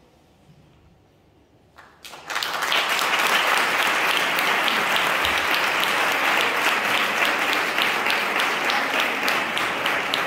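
Audience applauding, breaking out suddenly about two seconds in and carrying on steadily.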